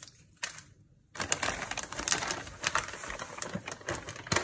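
Wrapping paper rustling and crinkling, with many small clicks and knocks, as a boot is pulled out of its cardboard shoebox. It starts about a second in, with a louder click near the end.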